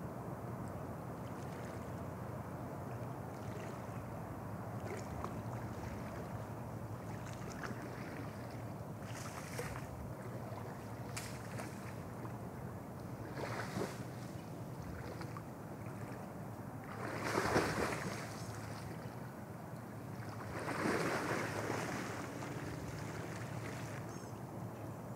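Water splashing and sloshing as a tiger wades and swims through a shallow pond, over a steady background hiss. Three louder bursts of splashing come in the second half, the loudest about two-thirds of the way in.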